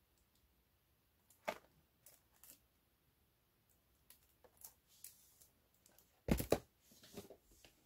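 Cardboard diskette boxes being handled by hand: a light tap and soft rustles of a shrink-wrapped box, then a louder double knock about six seconds in as a box meets the floor, followed by more rustling.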